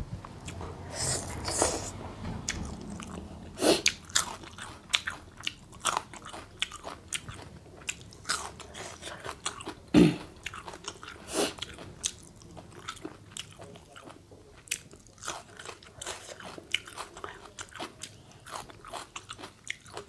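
A person chewing and crunching mouthfuls of spicy seafood instant-noodle salad eaten by hand, with many short sharp crunches and mouth clicks and one louder bite about ten seconds in.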